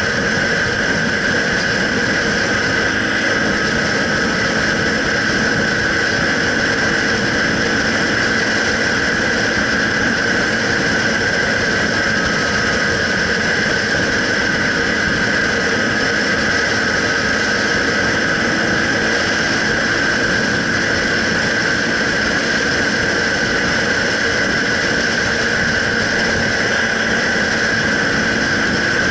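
Motorcycle cruising at a steady speed, its engine running evenly under wind noise, heard from a handlebar-mounted action camera. A steady high whine runs through it at constant loudness.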